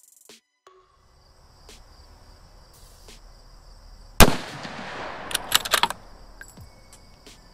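A single .308 rifle shot from a muzzle-braked bolt-action rifle about four seconds in, a sharp crack with a long echoing tail, followed a second later by a quick run of sharp metallic clicks. A steady high insect buzz runs underneath.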